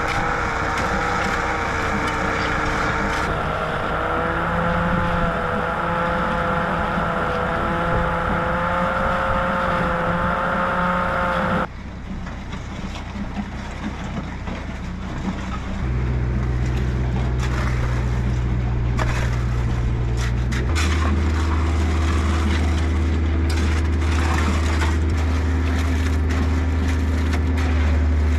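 Machinery engine running steadily, its pitch creeping slowly up for about twelve seconds, then a sudden change to a deeper drone that drops lower again about 21 seconds in.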